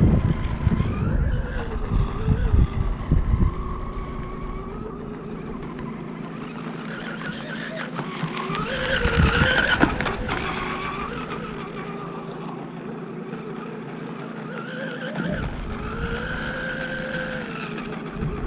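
Battery-electric radio-controlled P-Sport hydroplane running on the water, its motor and propeller whine rising and falling in pitch as the throttle changes and it passes, loudest about nine seconds in. Wind rumbles on the microphone during the first few seconds.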